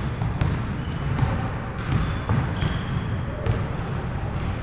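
A basketball bouncing on a hardwood gym floor during play, with sneakers squeaking now and then.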